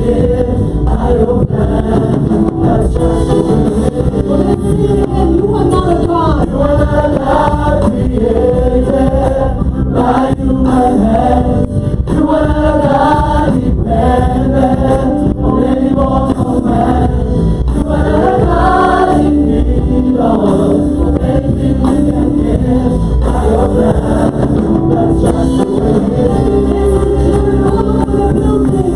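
Gospel worship team singing in chorus, a lead singer with backing vocalists, over a live band.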